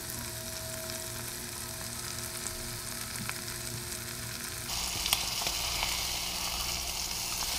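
Spice-coated yellowtail snapper fillets sizzling in bubbling butter and oil in a stainless steel frying pan on medium heat. The sizzle steps up louder and brighter about two-thirds of the way through, with a few light clicks.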